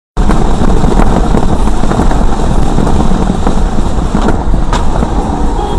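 A car driving fast on a rain-soaked highway, heard from inside: a loud, steady rush of tyres on wet tarmac, spray and rain on the body, with a few sharp ticks.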